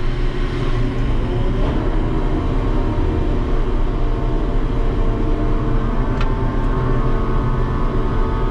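Ship's deck crane working a load: a steady mechanical drone carrying a whine of several steady tones, with a short sharp click a little after six seconds in.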